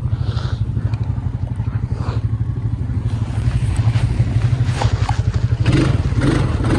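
ATV engine running steadily, a low pulsing drone, with more rattling noise mixed in over the last second or so.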